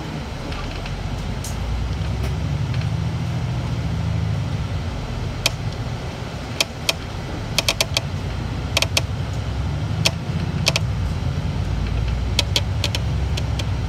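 City bus driving, its engine a steady low drone, with irregular sharp clicks and rattles, some in quick clusters of three or four.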